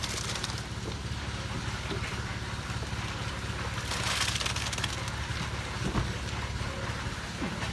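An engine running steadily with a low drone, with a couple of short bursts of hissing, scraping noise, the loudest about four seconds in.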